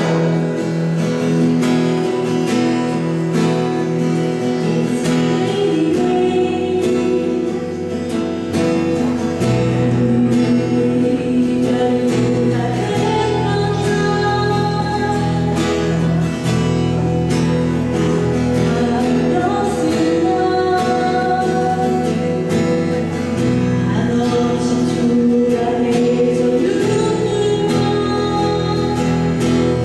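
A song with singing over acoustic guitar accompaniment; deeper bass notes join about six seconds in.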